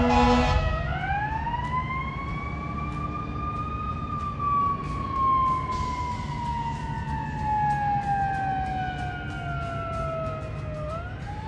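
Fire engine's siren winding up over about three seconds, then falling slowly in pitch for several seconds and rising again near the end, over traffic noise. A horn blast cuts off just at the start.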